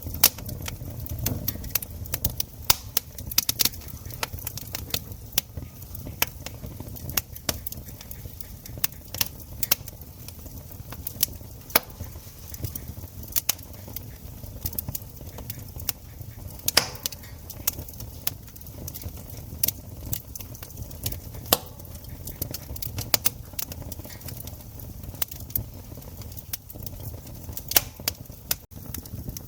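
Campfire crackling: burning wood giving irregular sharp pops and snaps, several a second, over a low steady rumble.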